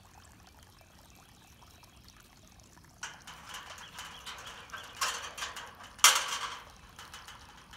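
German shepherd puppy scrabbling its paws against a metal pipe gate and its wire mesh, a rattling, scratching clatter that starts suddenly about three seconds in, with two sharp louder rattles near the end.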